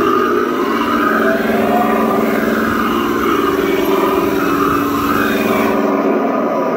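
The RC Leopard 2A4 tank model's sound unit playing its simulated engine sound, running steadily with a whine that rises and falls in swells.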